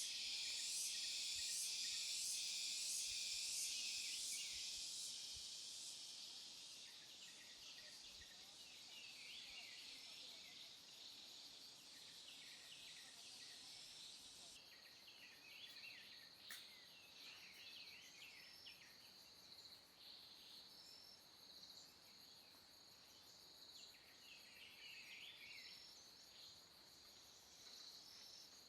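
Forest insect chorus: a loud, pulsing high buzz for the first few seconds that fades away, then a steady high insect drone with scattered short chirps. A single sharp click comes a little past the middle.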